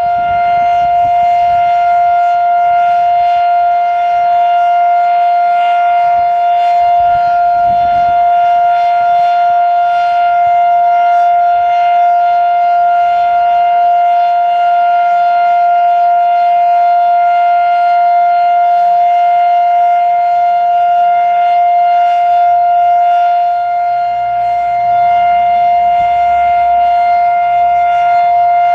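Federal Electric Fedelcode Model 7 electromechanical warning siren sounding its steady alert signal: one loud, continuous tone held at a constant pitch.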